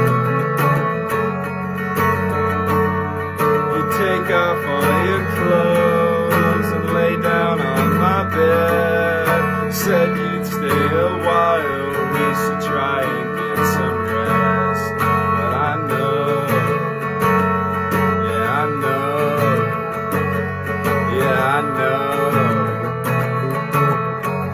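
Green Squier electric guitar with a capo, played in a steady repeating chord pattern, with a higher melody line that bends and wavers above it.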